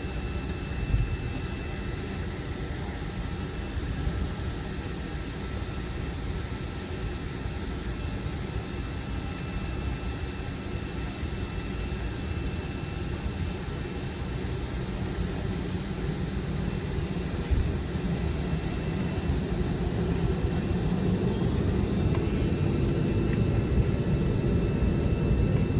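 Cabin noise of a McDonnell Douglas MD-88 on the ground: the steady whine of its rear-mounted Pratt & Whitney JT8D turbofans over a low rumble. The rumble grows louder over the second half as the jet rolls onto the runway.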